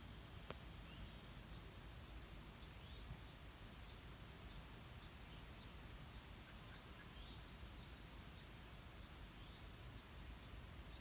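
Faint steady high-pitched trilling of insects in a grassy field, with a few faint short bird chirps scattered through.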